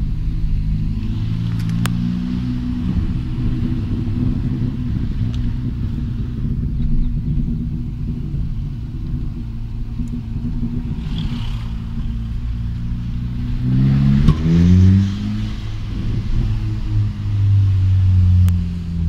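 Škoda Octavia RS's turbocharged 1.8-litre four-cylinder engine with a custom exhaust and cold air intake, heard from inside the cabin while driving. The revs climb under acceleration several times, most steeply about 14 seconds in, and then hold at a steady, lower note.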